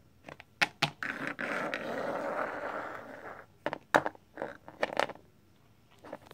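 Small plastic toys being handled and set down on a wooden tabletop: a few sharp clicks and taps, about two seconds of scraping and rubbing, then more clicks and knocks.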